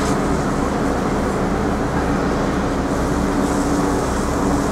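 Steady city street noise: a continuous rumble with a low engine hum running through it.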